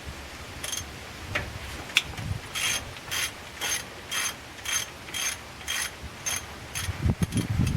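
Ratchet wrench being worked back and forth on a bolt: a few single clicks, then about nine short ratcheting strokes at roughly two a second with a metallic ring, then tool handling near the end.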